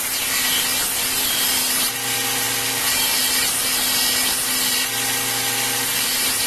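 Belt grinder running, with a forged steel dagger blank pressed against the moving belt: a steady grinding hiss over the motor's hum as the blade's bevels are ground down.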